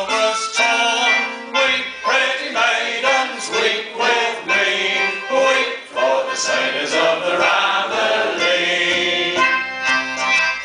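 Live acoustic folk band playing a tune on brass, including a trombone, and a squeezebox, in a steady rhythm with overlapping melody lines.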